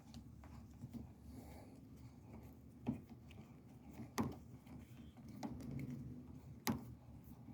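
Faint clicks and taps of an Allen key and plastic door-handle parts being handled during disassembly, with three sharper knocks about three, four and nearly seven seconds in, over a low steady hum.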